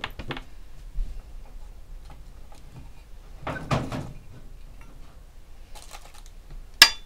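Handling noise from the watch's small metal presentation tin: scattered light clicks, a brief rustle about halfway through, and a sharp click near the end.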